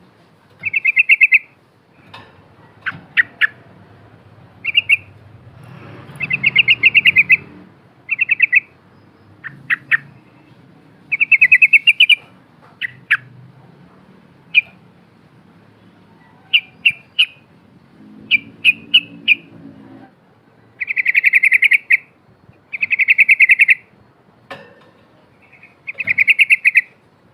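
Yellow-vented bulbul (trucukan) singing: a run of short, loud chattering phrases, each a rapid trill up to about a second long, broken up by sharp single notes, one after another every second or two.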